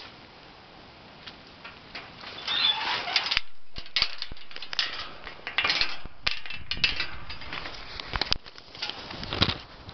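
Close, irregular rustling, clicking and rattling of a handheld camera being handled against a rusty chain-link fence, starting about two seconds in after a quiet hiss.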